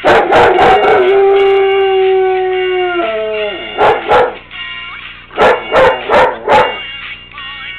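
German Shepherd howling one long steady note that drops away about three seconds in, then giving short barks, twice around four seconds in and four in quick succession near the end. A pop song plays underneath.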